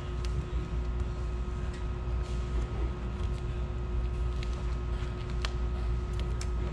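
Steady low machine hum with two constant tones held throughout, like a fan or other running equipment in a workshop, with faint scattered ticks and scratches over it.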